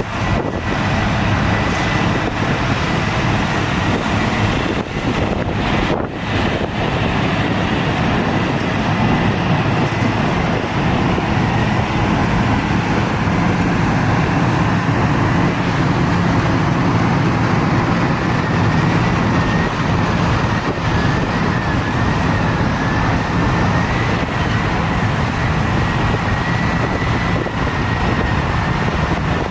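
Heavy earthmoving machinery running: a steady, loud diesel engine drone, with a thin high whine above it that wavers in pitch in the second half.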